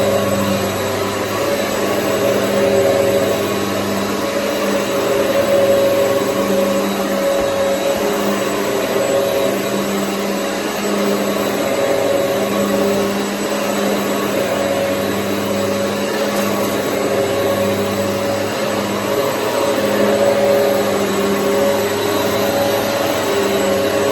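Hoover EliteSwivel upright vacuum cleaner running continuously: a steady motor hum over rushing air, its level rising and falling slightly every few seconds.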